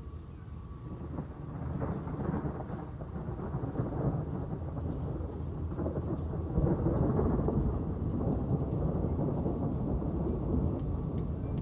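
Rolling thunder rumbling over steady rain, building from about a second in and loudest around the middle before easing slightly.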